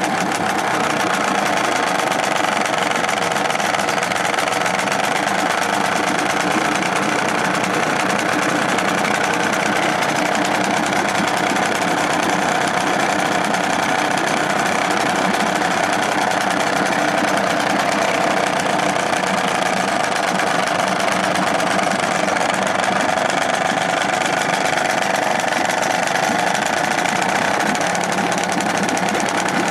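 Restored British Seagull two-stroke outboard motor running steadily in a test tank.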